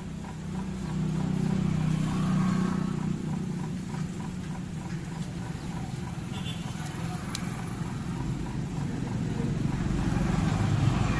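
A motor engine running with a steady low hum, growing louder near the end.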